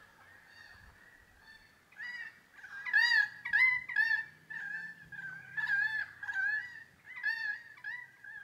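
A bird calling over and over: about a dozen short calls that rise and fall in pitch, starting about two seconds in and following each other quickly.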